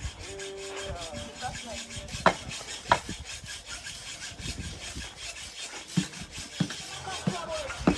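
Rasping, scraping work noise with a few sharp knocks spread through it.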